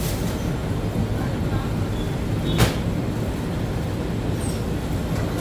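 Steady low hum of bakery machinery, with a single sharp knock about halfway through.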